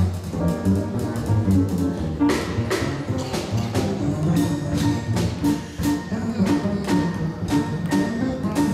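Live jazz from an upright double bass, plucked, with a drum kit keeping time on cymbals and drums.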